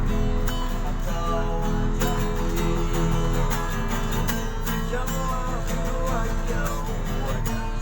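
Acoustic guitar strummed in a steady rhythm, with sustained chords ringing under the strokes.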